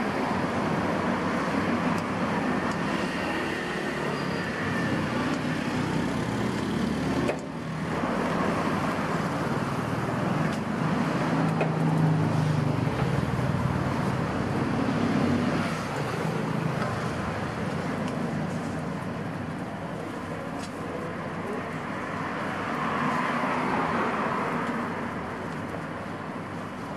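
Steady road traffic noise, briefly dropping about seven seconds in.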